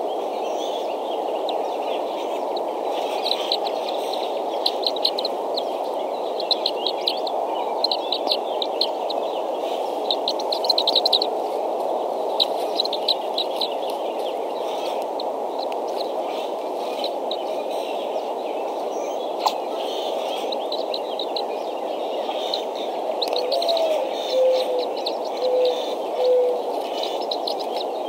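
Bald eaglets in the nest peeping in quick bursts of high chirps over a steady background hiss. Near the end a low dove-like coo repeats several times.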